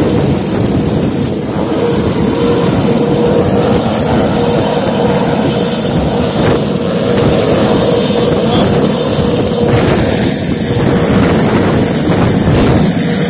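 Military helicopter flying low overhead, its rotor and turbines running loud and steady, with a high steady whine over the rotor noise.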